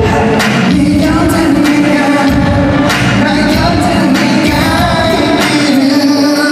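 Live pop music played loud through a concert sound system: a man singing into a handheld microphone over a steady dance beat.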